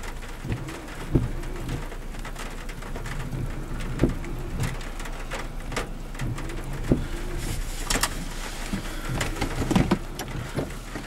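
Steady rain with wind noise, and a few sharp knocks scattered every few seconds.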